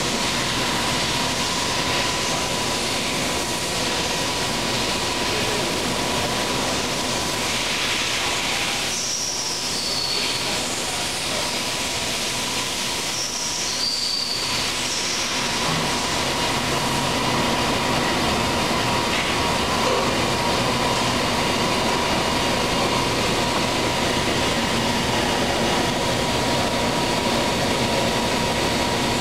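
Palmary OCD-4265 CNC cylindrical grinder running with a steady hiss and a constant mid-pitched hum. Twice, about nine and thirteen seconds in, a short high squeal falls in pitch.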